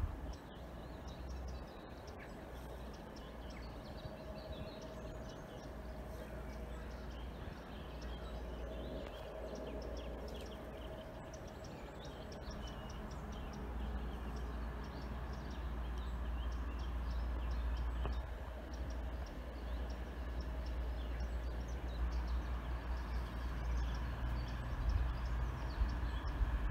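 Diesel multiple-unit passenger train approaching slowly, its low rumble growing steadily louder, with birds chirping throughout.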